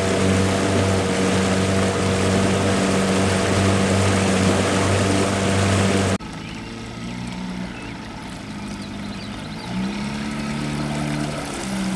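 Motorboat engine running steadily at speed with a loud hum and rushing noise; about six seconds in it cuts off abruptly to a quieter engine hum whose pitch shifts up and down.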